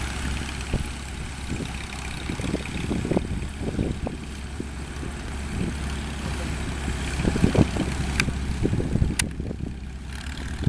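Engines of old farm tractors running at low speed as they drive slowly past, a steady low hum with irregular low thumps. Two short sharp clicks come near the end.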